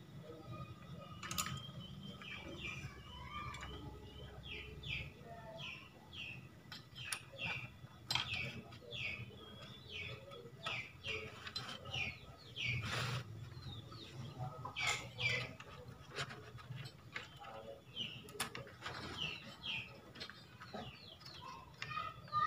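Small birds chirping over and over, short high notes sliding downward a few times a second, with a few sharp clicks and a faint low hum beneath.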